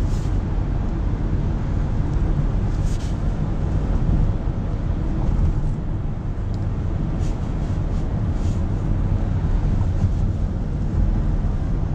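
Steady low rumble of a moving vehicle heard from inside its cabin, with no other sound standing out.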